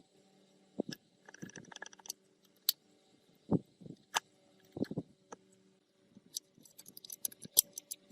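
Metal parts and hand tools clinking and knocking irregularly, with a few sharper metallic clicks near the end, over a faint steady hum.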